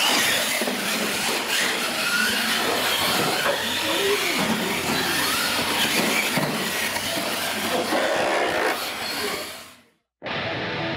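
Losi LMT radio-controlled monster truck's brushless electric drivetrain whining as it drives, mixed with the hiss of its tyres on concrete, varying in pitch with speed; it fades out about nine seconds in.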